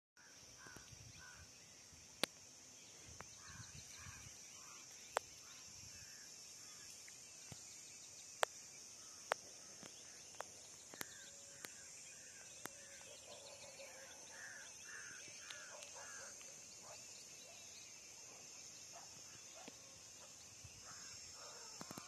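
Faint rural scrubland ambience: a steady high insect drone, with bird calls in short runs of two to four notes several times over, and a handful of sharp clicks scattered through the first half.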